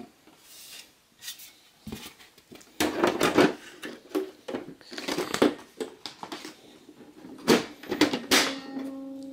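Dell desktop computer's case cover being lowered and fitted back onto the chassis: a run of scrapes, knocks and clicks that starts about two seconds in.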